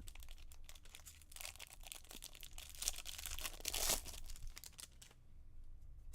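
A trading-card pack's wrapper being torn open and crinkled, a dense crackling that is loudest about two to four seconds in and dies down near the end.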